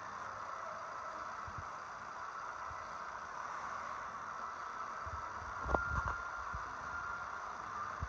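City street traffic: a steady hum of buses and cars, with a few low knocks a little after halfway.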